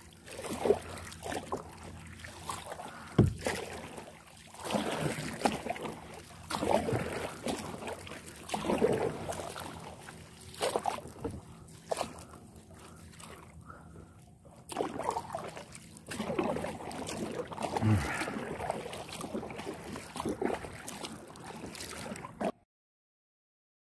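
Kayak paddle strokes dipping and splashing in shallow water, one every second or two, with a sharp knock about three seconds in. The sound cuts off suddenly near the end.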